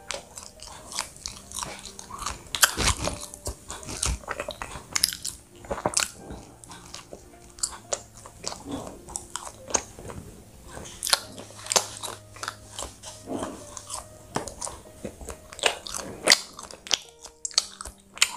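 Close-up chewing of a baked banana-and-cheese bread roll, with many sharp, irregular mouth clicks.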